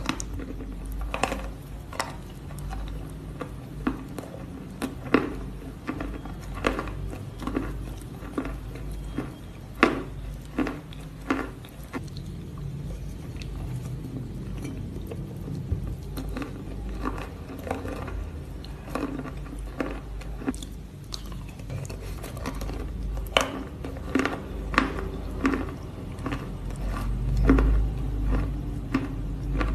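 Close-miked eating of a thick chalk paste from a metal spoon: irregular wet mouth clicks and smacks mixed with spoon taps, sparser for a few seconds around the middle. A steady low hum runs underneath.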